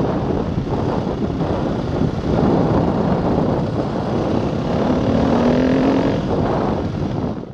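Dirt bike engine running under way on a gravel track. It gets louder about two seconds in and fades out at the end.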